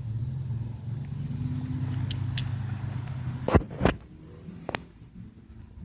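A vehicle engine running steadily at a low hum, stopping about three and a half seconds in. Two sharp knocks and a click follow.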